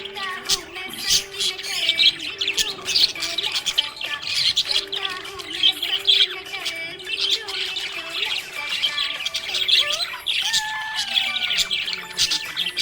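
A group of budgies chirping and squawking all at once in a dense, continuous chatter of short overlapping calls.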